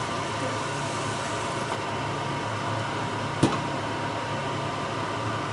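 Steady low mechanical hum, with a single sharp click about three and a half seconds in.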